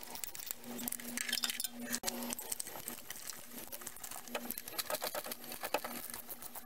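Quarter-inch drive ratchet clicking in quick, uneven runs as it turns bolts on the engine, with small metallic clinks of the tools.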